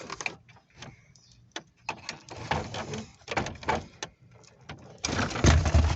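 Clicks, scrapes and rattles of an old car radio being pulled out of a pickup's dash, with a louder knocking scrape about five seconds in.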